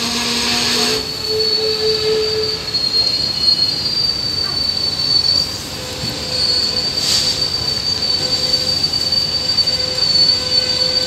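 Steel wheels of an Indian Railways passenger train squealing against the rails in a steady, high, slightly wavering tone over the rumble of the coach, as the train descends the steep ghat line.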